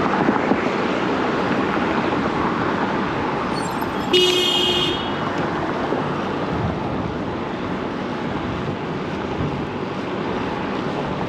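Steady city traffic and rushing air from riding a bicycle along a busy street, with a car horn sounding once, briefly, about four seconds in.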